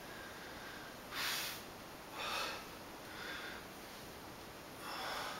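A man's forceful breaths through the nose with exertion during exercise: four short, sharp exhalations about a second or more apart.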